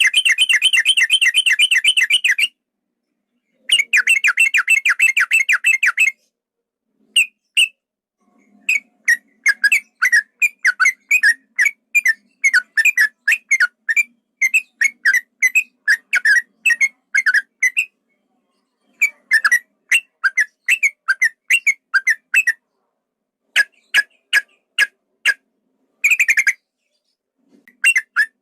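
Yellow-vented bulbul (trucukan) song: two long, fast rolling trills, then a long run of short whistled chirps in quick groups broken by brief pauses.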